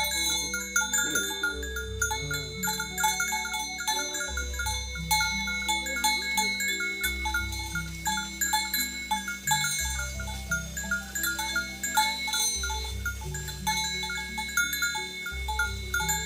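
Background music: held bass chords changing every few seconds under a quick, repeating chime-like plucked figure.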